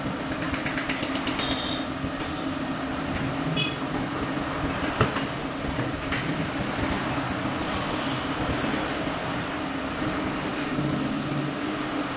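Steady mechanical drone of tyre-shop machinery, with a quick run of clicks near the start and a single sharp knock about five seconds in as a wheel is handled.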